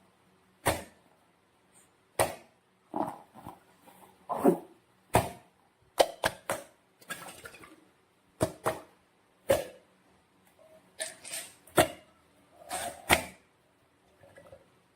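Slime and balloons being handled: a string of short, irregular squelches and sharp sticky clicks with quiet gaps between them.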